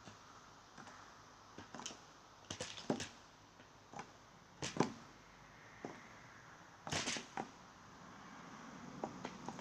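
Blue jays at a seed feeder making a run of irregular sharp taps and clicks, some coming in quick clusters of two or three.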